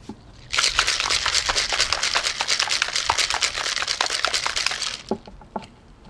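Ice rattling hard inside a cocktail shaker, a tin capped over a glass mixing glass, shaken fast for about four and a half seconds and stopping abruptly. A few single knocks follow.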